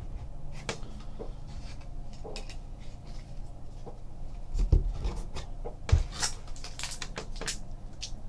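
Trading cards and a foil card pack being handled on a table: scattered light rustles and clicks, two dull thumps about a second apart around the middle, then a run of crinkling from the foil wrapper as the pack is picked up near the end.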